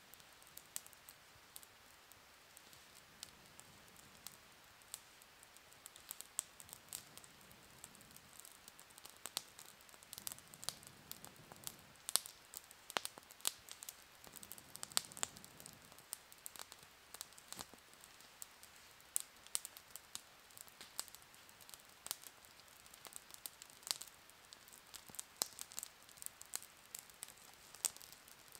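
Small wood campfire crackling as it catches, with sharp snaps and pops that come more often in the second half. A few soft breaths are blown onto the embers in the first half.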